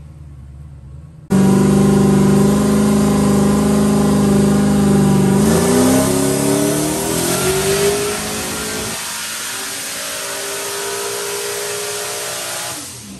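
Turbocharged LS V8 in a Honda S2000 running on a chassis dyno. It is quiet at first, then comes in very loud and abruptly about a second in, holding a steady speed. Its pitch climbs through a pull before it backs off to a lower, quieter run near the end.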